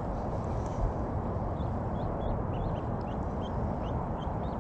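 Small birds chirping in short repeated notes, several a second, over a steady low rushing noise, with a brief thump about a second in.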